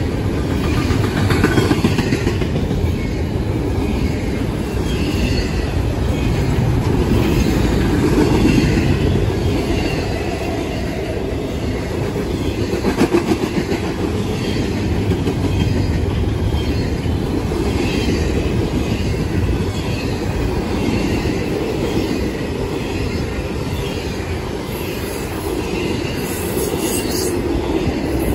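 Intermodal freight train of double-stack container cars and trailer flatcars rolling past close by: a steady rumble of steel wheels on rail with clatter over the rail joints, swelling and easing as cars go by. A faint high wheel squeal comes near the end.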